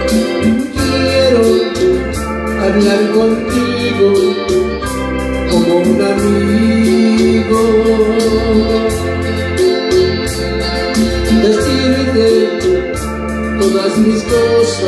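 Music: a backing track led by electronic organ, over a steady bass and cymbal beat.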